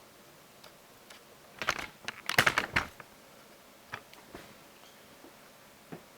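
Light clicks and clatter of small tools or parts being handled, a short cluster about one and a half to three seconds in, then a few single ticks.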